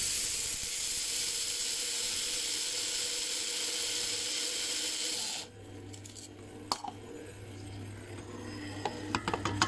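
Electric blade coffee grinder grinding flaxseed, running evenly for about five and a half seconds and then stopping suddenly. After it stops, the stand mixer kneading bread dough hums steadily, with a few clicks and light clatter near the end.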